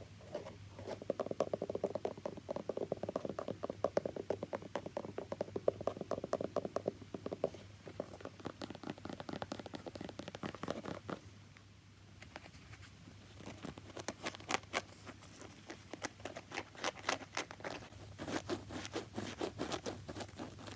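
Rapid tapping and scratching on a shoe: a dense run of small clicks and scrapes. It eases off briefly about halfway through, then picks up again with sharper taps.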